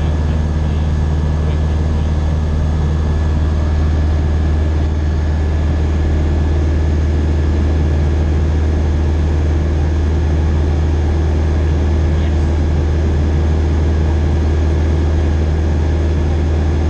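Single-engine propeller light aircraft in level flight, its engine and propeller making a steady low drone as heard inside the cockpit.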